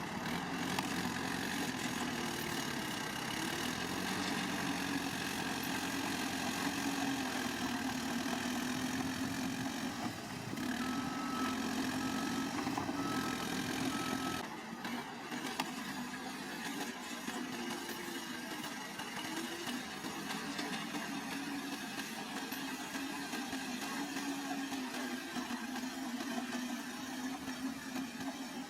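Heavy earthmoving machinery's diesel engine running steadily with a wavering hum, from a bulldozer or dump truck. A short run of evenly spaced beeps sounds about midway, and the deep low rumble drops away abruptly soon after.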